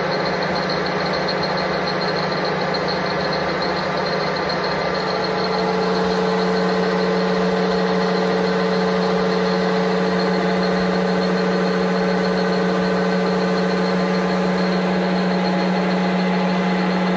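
Metal lathe running at the top speed its variable-frequency drive allows, with an end mill in the chuck milling a slot in a steel chisel at 1 mm depth and minimal feed: a steady hum with a cutting whine. About five seconds in, a second, higher tone joins and the sound grows slightly louder.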